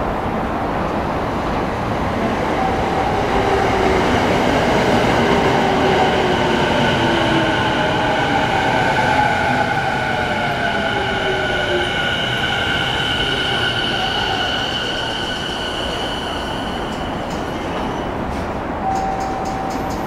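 Tokyo Waterfront Area Rapid Transit 70-000 series electric train braking into the station: the whine of its Mitsubishi VVVF inverter and traction motors steps down in pitch as it slows. Steady high tones ride above the whine.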